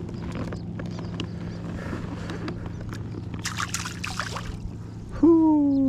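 Water sloshing around a fishing boat over a steady low hum, with small clicks and a brief rush of splashing about three and a half seconds in. Near the end a person lets out a loud cry that falls in pitch.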